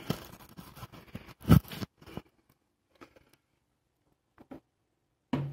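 Handling noises at a workbench: scattered clicks, scrapes and rustles, loudest a single knock about a second and a half in, then mostly quiet with a few faint ticks. A brief low hum comes near the end.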